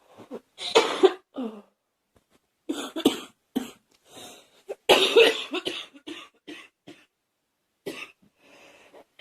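A girl coughing in repeated bouts of several coughs each, with short pauses between them. The longest and loudest run comes about five seconds in.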